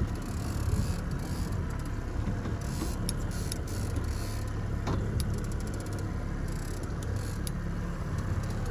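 Boat motor running steadily at trolling speed, a low even hum, with a short run of rapid clicks about three seconds in.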